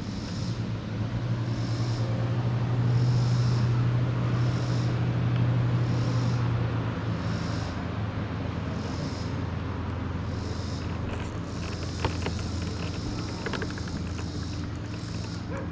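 A boat engine's steady low hum, loudest over the first several seconds and then fading. A faint high pulse repeats about every three-quarters of a second.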